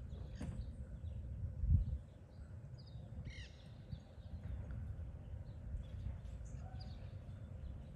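Birds calling now and then over a steady low outdoor rumble, with a cluster of calls about three and a half seconds in. A single low thump, the loudest sound, comes just under two seconds in.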